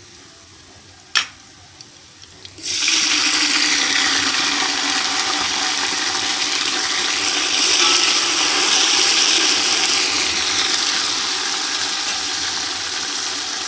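Fried onions sizzling faintly in ghee in an aluminium pot, with one knock about a second in. About two and a half seconds in, water goes into the hot ghee: a sudden loud rushing hiss that holds, easing slightly near the end.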